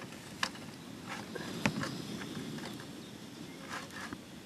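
Small screw-on gas canister camping stove burning steadily under a saucepan, with a few light clicks as the pan is steadied on the burner.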